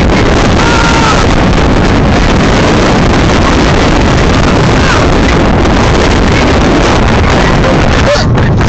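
Roller coaster ride heard from a seat in the train: a loud, steady roar of wind on the phone's microphone mixed with the rumble of the train running down the track. Near the end the roar briefly thins as the phone is lowered into the car.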